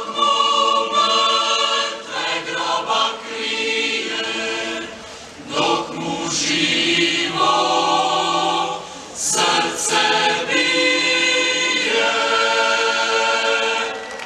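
Choir singing long held notes, with the chord shifting every second or two.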